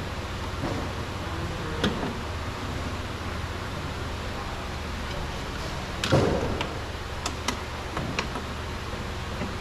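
A few sharp clicks and knocks of parts and tools being handled on a car's front door, the loudest about six seconds in, over a steady low hum.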